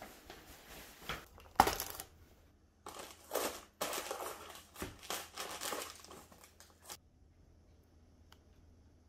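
Rustling and crinkling in several bursts as a satin ribbon is untied from a cardboard gift box and the box is opened, with a sharp knock about a second and a half in, the loudest sound.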